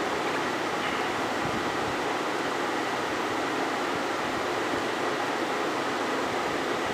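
Steady rushing noise of blown air, even in level with no rhythm or change.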